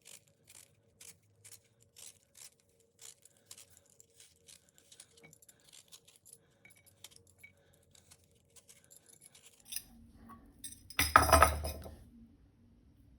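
Apple being peeled by hand: small scraping strokes, regular at about two a second at first, then fainter and more irregular. Near the end comes a short, loud clatter of something hard being put down.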